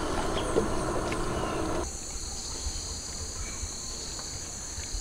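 Rainforest insect chorus, a steady high-pitched hum. For the first couple of seconds it lies under louder noise from the boat on the river, which cuts off abruptly.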